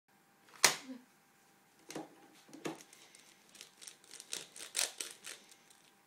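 Plastic Rubik's cube being picked up and twisted by small hands: a sharp knock about half a second in, then a run of irregular plastic clicks and clacks as the layers are turned.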